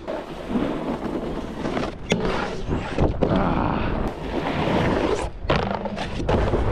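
Snowboard riding on snow: a continuous scraping, rushing noise from the board sliding and carving, mixed with wind on the body-worn microphone, with a couple of sharp knocks about two and three seconds in.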